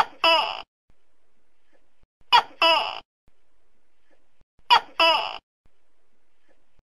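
Tokay gecko calling its 'to-kay' call three times, about two and a half seconds apart. Each call is a short note followed at once by a longer one.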